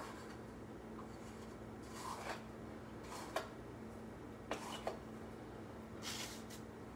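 Faint handling sounds of coffee being scooped from a coffee can into a drip coffee maker's filter basket: a few soft scrapes and clicks, spaced out, over a low steady hum.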